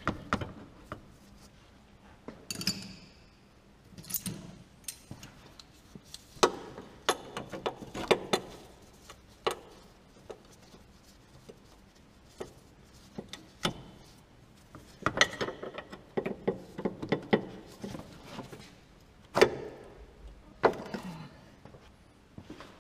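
Metal clinks and knocks of a wrench working the lower nut of a car's anti-roll bar drop link, irregular single knocks with short runs of quick clicks.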